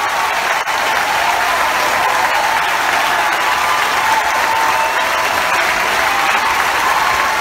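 A large audience applauding steadily at the end of a band's set.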